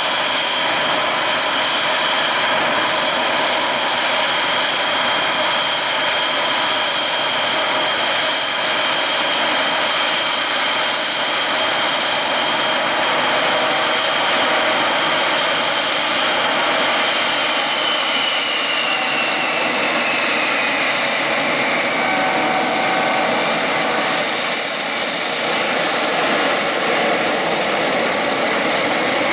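Blue Angels F/A-18 Super Hornet jet engines running on the ground as the jets start taxiing: a steady loud rushing noise with high whining tones. Partway through, one whine slides down in pitch and a few new high tones join in.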